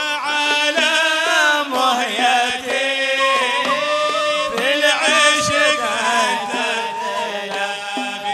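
Male voice chanting an Arabic devotional qasida (inshad), with long held notes ornamented by wavering melismatic turns.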